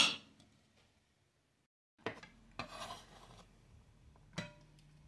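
Kitchen knife blade scraping and scooping chopped onion across a wooden cutting board. There is a sharp click at the start, then a brief silence, then several rasping strokes and a knock of the blade on the board near the end.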